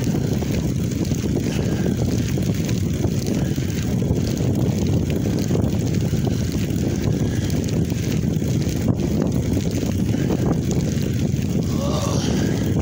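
Wind buffeting the microphone of a phone held by a cyclist while riding, a steady low rumble.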